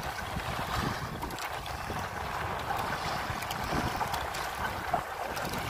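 Wind buffeting the microphone over choppy sea water sloshing and lapping, a steady rushing noise with no engine tone.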